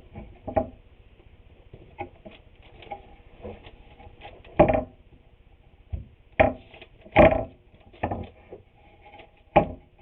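Wooden boards being handled and set into place, giving a string of irregular wooden knocks, the loudest a little under halfway through and again about seven seconds in.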